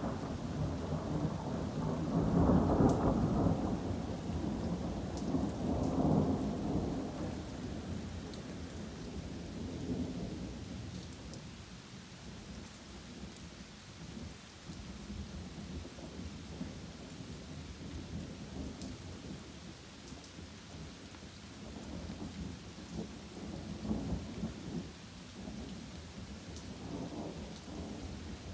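Steady rain falling through trees with rolling thunder. A long rumble swells a couple of seconds in, peaks again around six seconds and dies away, leaving the rain; quieter rumbles return near the end.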